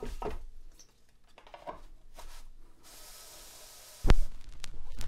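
Soft rubbing and light clicks of a vinyl LP being handled and set on a turntable platter, then a faint hiss. About four seconds in comes a sudden loud thump as the stylus drops and the record starts playing.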